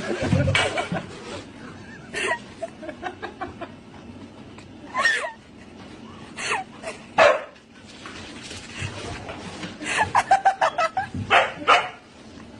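A dog barking in short, separate calls, with a quick run of barks about ten seconds in.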